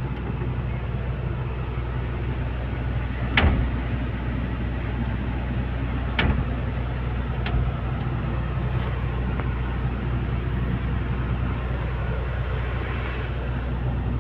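Diesel engine of a Komatsu PC210 hydraulic excavator running steadily, heard from the cab, with three sharp clicks or knocks, the loudest about three seconds in.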